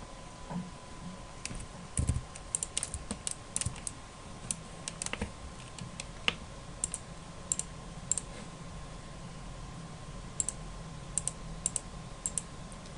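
Irregular clicking of a computer keyboard and mouse, single clicks and short runs scattered throughout, over a faint steady hum with a thin high tone.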